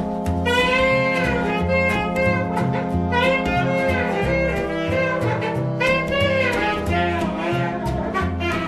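Jazz music: saxophone and brass play bending phrases over a bass line that steps about twice a second, with drums keeping time.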